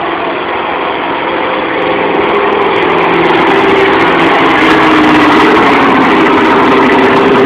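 Super street class semi tractor's diesel engine at full throttle, dragging a pulling sled down the track. It gets louder over the first few seconds as the truck comes past, then holds steady.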